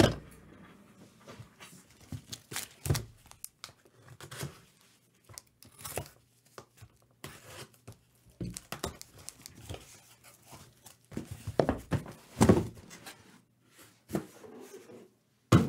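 Cardboard shipping case being torn open by hand: irregular ripping and crinkling of cardboard and tape, with dull knocks as the sealed boxes inside are pulled out and set down.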